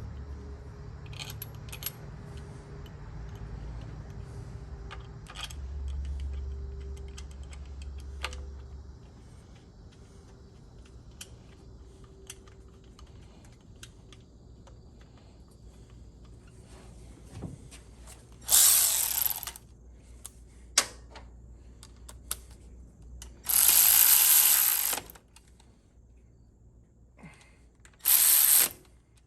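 Ratchet turning bolts on a transmission valve body: scattered clicks and knocks, then three quick runs of ratcheting of about a second each near the end.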